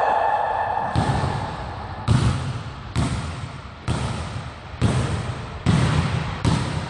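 A basketball dribbled slowly on a hardwood gym floor: seven bounces about a second apart, each echoing through the hall.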